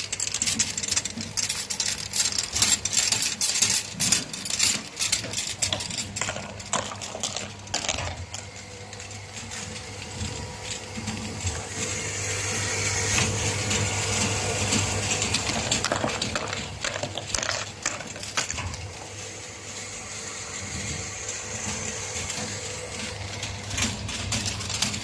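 Glass bottles clinking against each other and the metal guides of a running bottle washing machine, over a steady machine hum. The clinks are densest in the first eight seconds, and a steady hiss swells through the middle.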